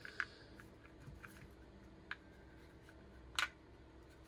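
Scattered light clicks and ticks of forceps picking up a small spring and working it against pistol parts, with one sharper click about three and a half seconds in.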